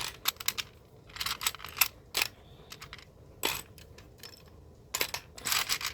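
Small plastic Lego marble run pieces clicking and clattering against each other as they are handled and set down, in quick clusters of clicks with short pauses between.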